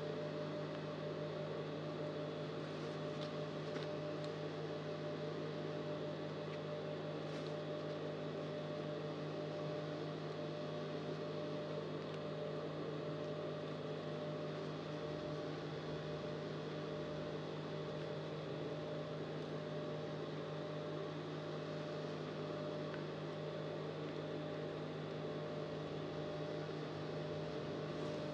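A steady electrical hum with a constant even pitch, and a few faint light ticks a few seconds in as fabric and pins are handled.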